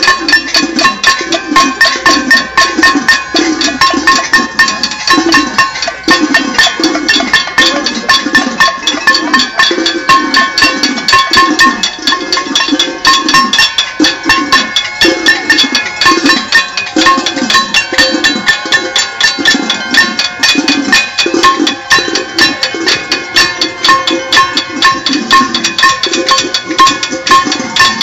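Protest crowd banging pots, pans and other metal objects: a dense, continuous clatter of metallic strikes and ringing, with a steady low beat, a little faster than one a second, running under it.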